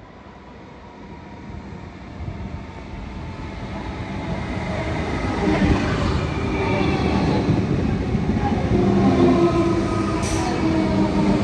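Aurizon freight train's diesel locomotive approaching on the track, its engine and wheel noise growing steadily louder over the first half and then holding loud and steady. There is a brief high hiss about ten seconds in.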